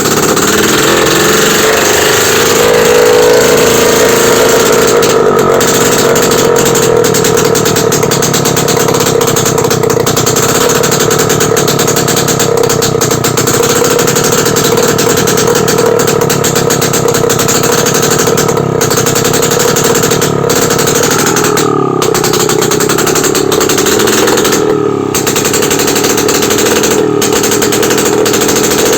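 Yezdi two-stroke motorcycle engine running with its silencers removed: a loud, rapid open-exhaust crackle at steady revs. The pitch climbs a little in the first few seconds and dips briefly about three quarters of the way through.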